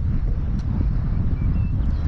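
Wind buffeting the microphone: a heavy, uneven low rumble with no engine tone in it.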